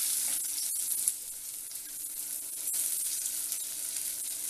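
Sliced onions sizzling in hot oil in a clay kadai, just starting to sauté: a steady high hiss, with one sharp click about a second in.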